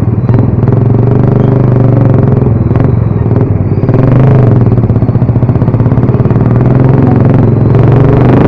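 Motorcycle engine running steadily while riding, loud and close.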